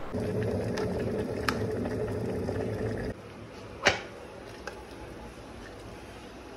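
A steady low hum that cuts off suddenly about three seconds in, then a single sharp click as a stainless-steel electric kettle is lifted from its base, over a quiet steady hiss.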